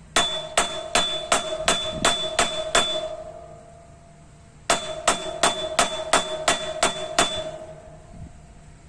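Craftsman screwdriver used as a hammer, struck hard against metal in two runs of eight blows, about three a second, with a pause of about two seconds between runs. Each blow is a sharp metallic clang that rings on. The screwdriver is being tested to see whether it will break.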